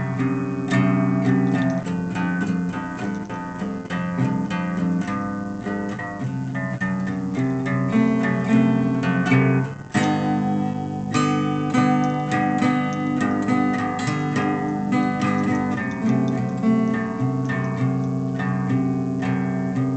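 Music: guitar with plucked and strummed chords, dropping away briefly about halfway through before going on.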